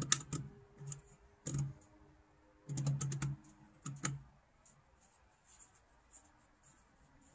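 Clicks and light knocks from hand work on the car's wiper controls, in quick clusters during the first four seconds and then only a few faint ticks.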